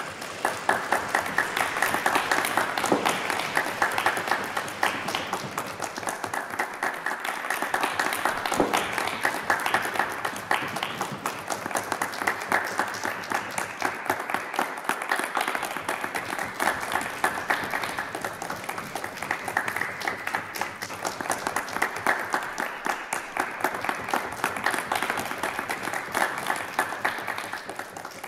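Audience applauding: many hands clapping steadily, dying away at the very end.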